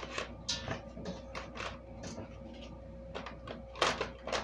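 Brussels sprouts being handled and packed into a plastic freezer bag: irregular small knocks and rustles, with a louder clatter a little before the end.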